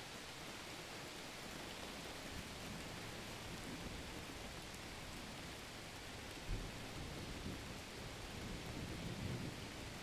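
Steady rain with low rolling thunder. A short, sharper thunder jolt comes just past the middle, and a heavier rumble builds near the end.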